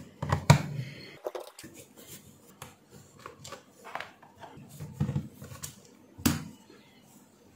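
Screwdriver backing small screws out of the plastic case of an Xbox 360 power supply brick: scattered clicks and taps of the tool and of the case being handled, with a sharper knock about six seconds in.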